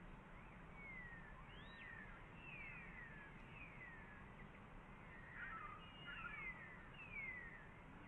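Faint bird calls: a run of short, thin descending whistles about once a second, with a brief jumbled twitter a little past the middle.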